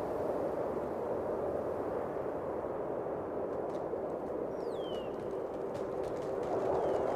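A steady hum with a faint held tone, heard at the mouth of a stone-lined well shaft. A short falling whistle comes about four and a half seconds in, and a fainter one near the end.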